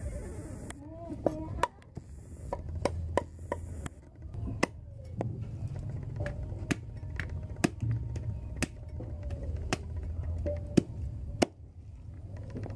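Meat cleaver chopping fish on a wooden chopping board: a run of sharp knocks at an irregular pace, roughly one every half second to a second.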